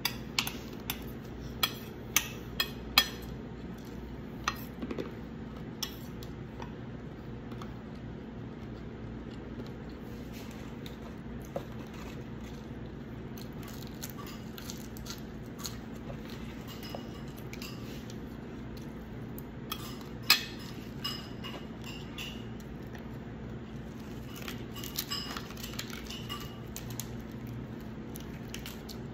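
Metal spoon clinking and scraping against a ceramic plate during a meal: scattered sharp clinks, several in the first few seconds, the loudest about twenty seconds in, over a steady low hum.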